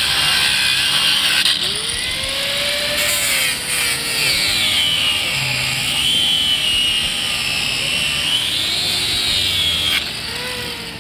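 Electric angle grinder grinding steel on a vehicle frame rail's suspension hanger, a steady high whine over a grinding hiss that dips and rises in pitch as the disc is pressed in, dropping off about ten seconds in.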